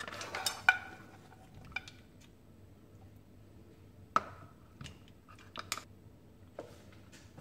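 Plastic serving utensil scraping and stirring pasta and mussels in a non-stick pan, with a few soft clicks and taps through the first second. Then a handful of isolated light clicks as pasta and mussel shells are set on a plate.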